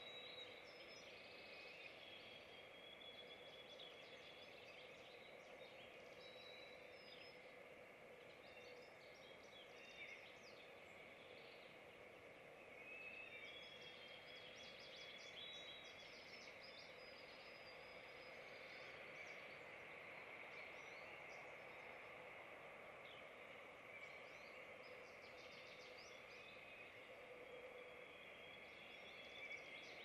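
Faint chirps and short whistled phrases of small songbirds, coming and going throughout, over a steady hiss.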